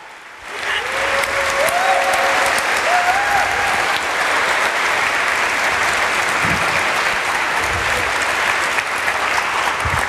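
Audience applauding, swelling in about half a second in and then holding steady and loud.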